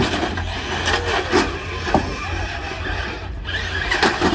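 Radio-controlled cars colliding with each other and against the wooden boards of the arena walls, their tyres scraping on the asphalt. There are several sharp knocks, a strong one about two seconds in and another near the end.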